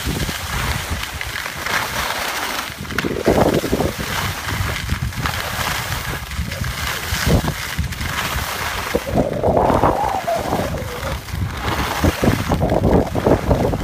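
Wind buffeting the microphone of a camera carried by a moving skier, mixed with the steady hiss and scrape of skis sliding over snow.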